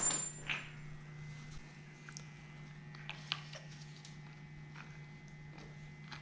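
Faint clinks and taps of metal tools and engine parts being handled while timing-chain tensioners are unbolted. A louder clatter comes right at the start, and a steady low hum runs underneath.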